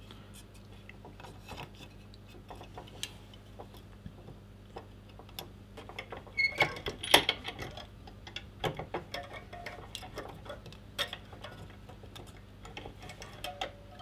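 Scattered light clicks and knocks of a printed circuit board with pin connectors being fitted and pressed into a small bench vise, with a cluster of louder knocks about seven seconds in.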